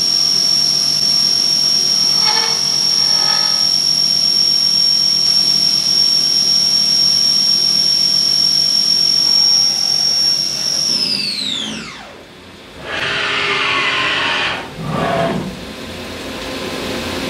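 CNC milling machine spindle and end mill cutting a metal feed nut, giving a loud, steady high-pitched whine. About eleven seconds in the whine falls quickly in pitch and dies away as the spindle spins down, followed by two brief rushes of noise.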